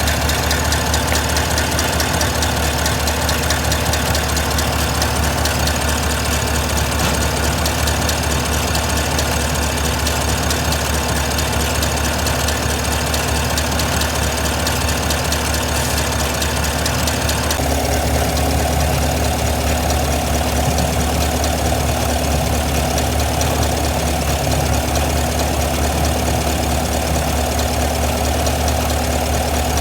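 GM L87 6.2-litre V8 idling steadily with a rapid ticking from its hydraulic lifters, the sign of noisy or failing lifters. The tone shifts a little over halfway through.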